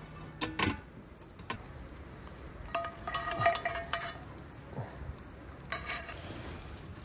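Metal clatter as a kettle grill's lid is lifted. Then steel tongs clink and ring against a cast-iron skillet and the grill grate as ribs are moved, loudest about three seconds in, with one more clink near the end.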